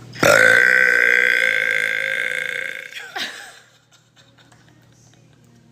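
A person's long, loud burp, held for about three seconds at a steady pitch and fading out toward the end.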